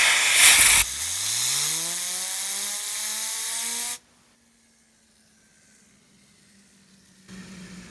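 Fidget spinner spun up by a loud rushing hiss, its hum rising in pitch and then holding steady. The hiss cuts off about four seconds in, and the spinner keeps humming faintly at a steady pitch.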